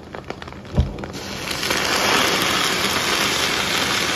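Scrambled egg crackling in hot oil in a wok, a single thump a little under a second in, then boiling water poured into the hot wok: a loud steady rush of pouring water over the sizzling egg and oil.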